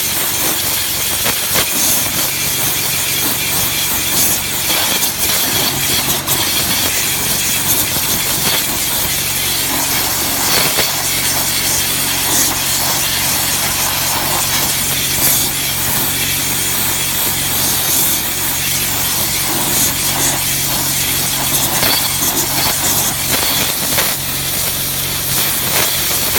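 High-pressure water jet from a pressure washer blasting old paint off IBR corrugated metal roof sheeting: a loud, steady spray hiss with uneven scouring texture, over a steady low drone from the pressure washer's motor.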